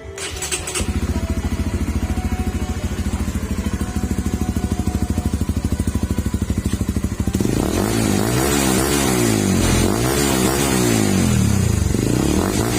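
Honda Supra GTR 150's single-cylinder engine running through an MVR1 racing exhaust: it starts just after a click, idles with an even pulse, then is revved up and down repeatedly from about seven seconds in.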